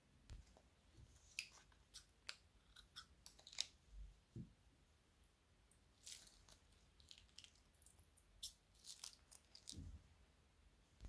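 Faint, scattered crinkles and clicks of a thin plastic bag being handled and squeezed as thick slime glue is pressed out of it, with a few soft low bumps.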